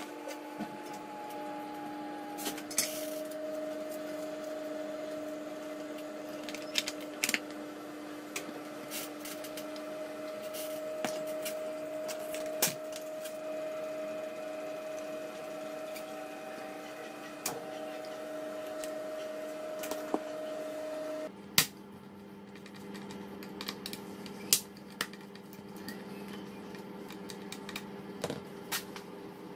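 Scattered small clicks and taps from hands handling a plastic controller case and a hot glue gun, over a steady hum that drops in pitch about two-thirds of the way through.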